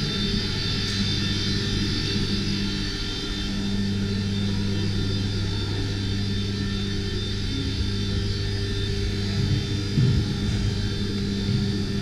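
Formula 1 experience car's engine running at a steady speed, a constant drone with a high whine that neither rises nor falls.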